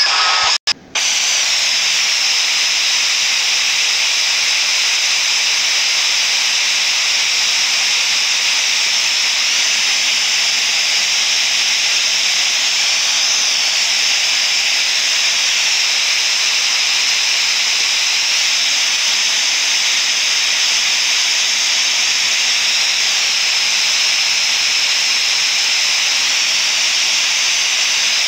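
Loud, steady hiss of static noise, with a brief cut-out just under a second in.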